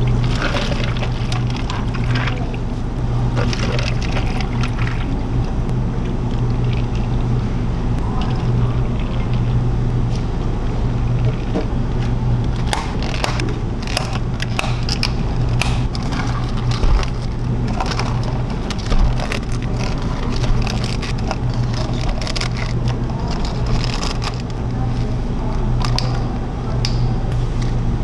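Iced drinks being made at a café counter: water poured over ice into plastic cups, then a run of sharp clicks and knocks as clear plastic lids are pressed onto the cups. A steady low hum runs underneath.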